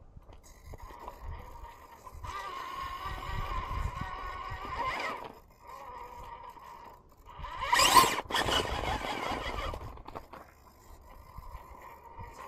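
Class 2 RC rock crawler's electric motor and Stealth X transmission whining in short throttle bursts as it works up a steep rock, the pitch rising as it pushes. The loudest, fullest burst comes about eight seconds in.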